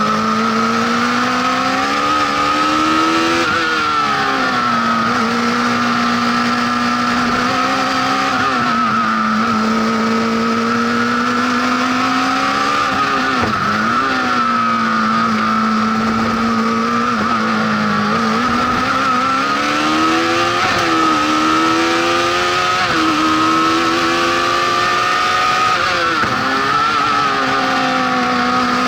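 Honda CBR1100XX inline-four motorcycle engine in a Fiat 126-based prototype, running hard under load. Its pitch holds, then rises and falls again several times as the car accelerates and backs off, with a steady high whine over the engine note.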